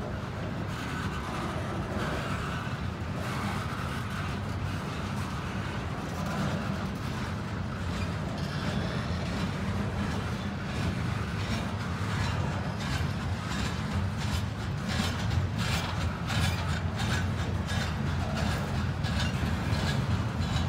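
Freight train of steel-coil flatcars rolling past: a steady low rumble of wheels on rail, with rapid clicking and clanking of wheels over rail joints and slack in the couplers that grows more frequent and a little louder over the second half.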